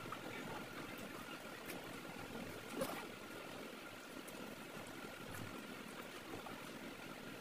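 Close-miked eating sounds: wet chewing and smacking of a full mouthful, and fingers squelching through oily curry and rice on the plate. One sharper click comes a little before three seconds in.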